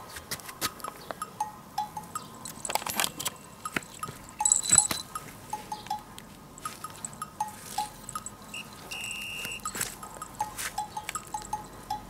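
Light background music of short, plinking chime-like notes, with scattered sharp clicks.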